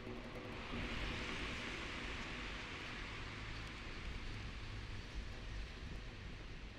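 A soft, even hiss that swells about a second in and slowly fades, after the last note of the music dies away at the very start.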